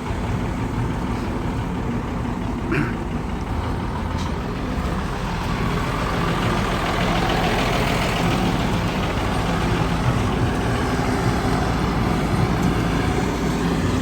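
A vehicle engine running steadily, growing louder about halfway through.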